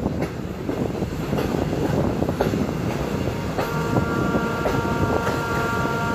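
Train running at speed, heard from an open carriage window: a steady rumble and wind rush, with the wheels clacking over rail joints about every half second. A little past halfway, a steady high tone of several pitches joins in.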